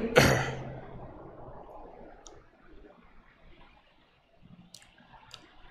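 A man coughing once into his hand, a loud burst that fades over about two seconds. After it comes quiet room tone with three faint short clicks, about two, four and a half and five seconds in.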